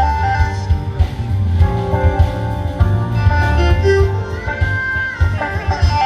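Live band music: electric guitar and bass guitar over keyboards and a drum kit, with a strong, pulsing bass line.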